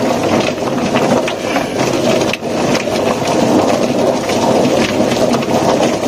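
Rotary-drum poultry plucker running with a wet bird inside: a steady, dense churning noise with scattered knocks as the spinning base plate throws the carcass against the rubber plucking fingers and stainless steel drum wall.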